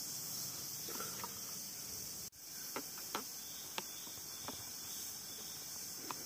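Steady, high-pitched chorus of forest insects, with a few short, faint clicks scattered through it. The whole sound cuts out for an instant about two seconds in.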